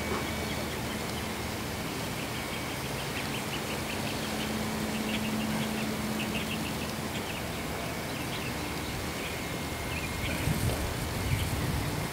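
Steady outdoor background noise with a low motor hum that swells in the middle, a scattering of faint high ticks, and a few low thumps near the end.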